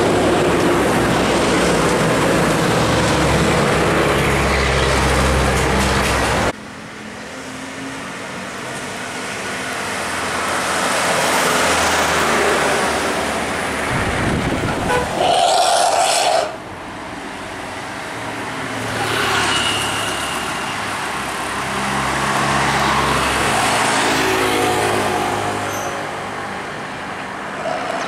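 Road traffic passing: a coach's engine running as it pulls away, then cars and a van driving by, with short horn toots. The sound breaks off abruptly twice where clips are cut together.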